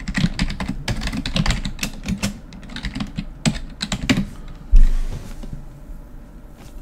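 Computer keyboard typing: a quick run of key clicks for about four seconds, then a single heavy low thump about five seconds in.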